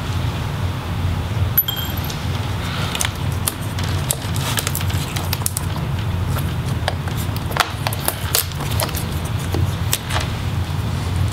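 Light scattered clicks and taps of small laptop parts being handled as the I/O board and its cable are lifted out of the plastic chassis, over a steady low hum.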